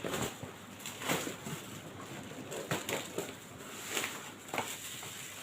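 Scattered rustles and knocks, about seven spread irregularly, as packaging is handled during an unboxing.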